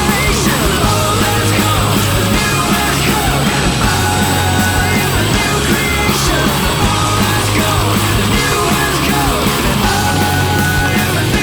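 Loud rock music, steady and dense throughout.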